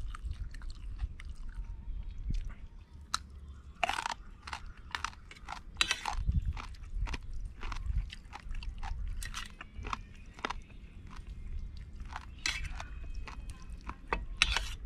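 A person biting and chewing crunchy raw vegetables close to the microphone, with many irregular crisp crunches.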